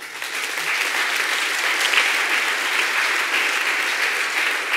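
Audience applauding, a dense clapping of many hands that eases off near the end.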